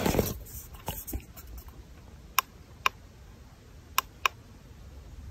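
Four short, sharp clicks in two quick pairs, the second pair about a second after the first: the buttons of a handheld laser rangefinder being pressed to range a distance.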